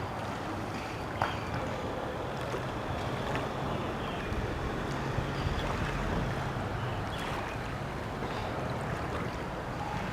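Birds calling in short, scattered chirps over a steady low hum and rushing outdoor noise at the bay.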